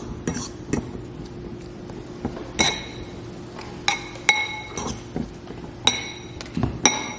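Metal fork clinking against a glass dish while cucumber slices are stirred in oil, vinegar and salt: about nine sharp, ringing clinks at irregular intervals.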